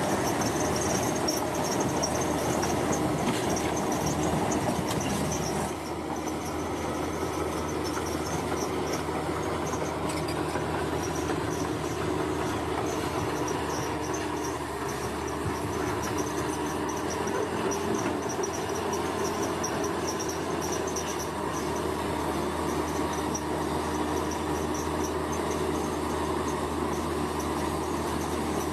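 Heavy construction machinery running steadily: a constant diesel engine drone with a high, fluttering whine above it.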